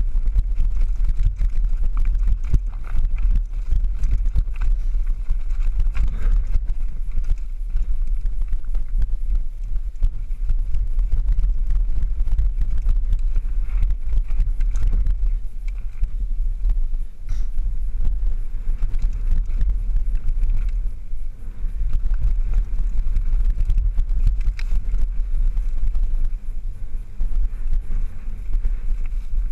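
Mountain bike riding down a rough dirt singletrack, its frame and parts rattling with constant small knocks over the bumps, under heavy wind rumble on a helmet-mounted camera's microphone.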